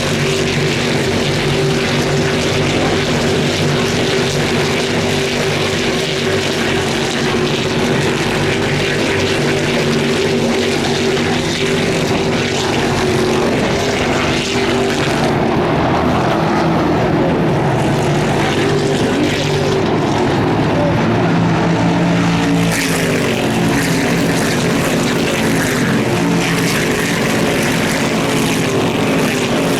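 Stock Car race cars' V8 engines running around the circuit, a loud continuous engine drone whose pitch shifts as the cars go by, changing noticeably about two-thirds of the way through.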